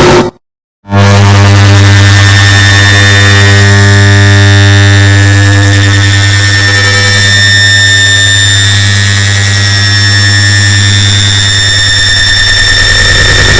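Air conditioner start-up sound layered on itself over and over into a loud, distorted, steady drone with a strong low hum and many held tones. It cuts out for about half a second just after the start, then comes back.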